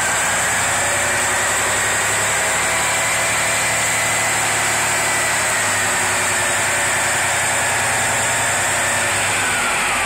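Semi-truck's diesel engine idling steadily, with a faint high whine that climbs slightly at the start and sinks near the end.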